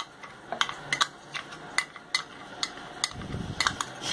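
A metal spoon stirring and scraping in an aluminium saucepan of milk and cornstarch and against a small cup, making a string of light, irregular clinks. There is a soft low thump about three seconds in.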